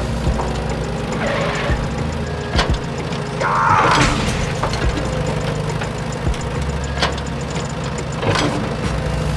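A steady low engine-like idling hum as the toy excavator works, broken by scattered sharp clicks and two short scraping rasps about one and a half and three and a half seconds in.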